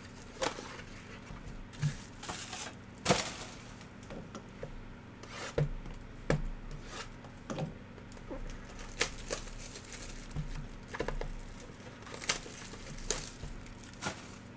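Cardboard trading-card hobby boxes being handled and set down on a table, with plastic wrap crinkling and scattered sharp taps and knocks, the loudest about three seconds in.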